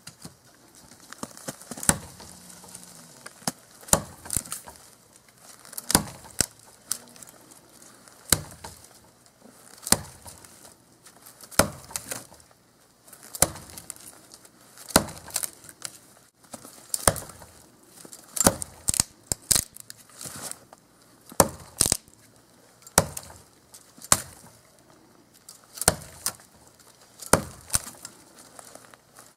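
Cold Steel Trail Hawk tomahawk chopping into a dead standing tree: a steady run of sharp chops about every one and a half to two seconds, coming faster in the middle, notching the trunk at its base.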